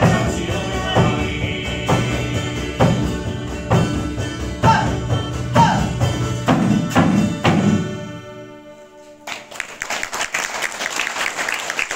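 Live song with a man singing over a steady drum beat of about one stroke a second. The music fades out about eight seconds in, and audience applause starts a second later.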